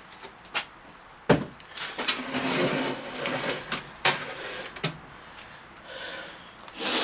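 Heavy cast-iron parts of an old hand-operated metal planer being set down and shifted on a workbench: a few sharp knocks, the loudest about a second in, with scraping between them.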